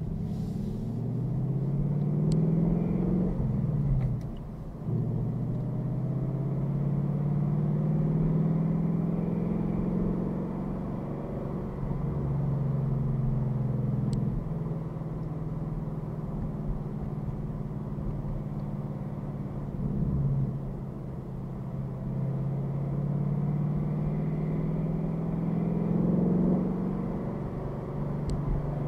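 Ford Mustang GT's V8 engine driving the car along, its note climbing for the first few seconds and dropping briefly about four seconds in, as at a gear change. After that it settles into a steady cruise with slow rises and falls in pitch.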